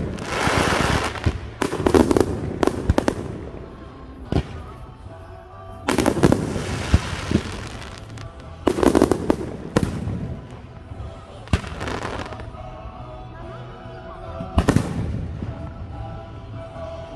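Aerial firework shells bursting in irregular sharp bangs, several in quick clusters, a few followed by about a second of crackling from the bursting stars.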